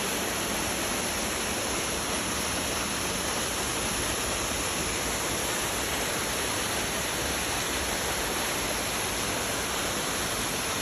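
Mountain stream rushing over rocks: a steady, even wash of water noise that does not change.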